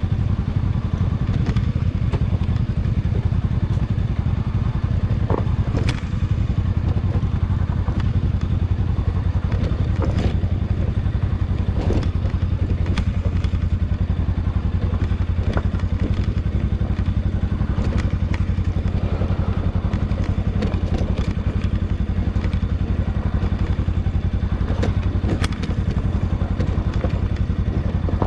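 Motorcycle engine running steadily on a descent down a rough, rocky dirt trail, with scattered short clatters and knocks as the bike jolts over stones and ruts.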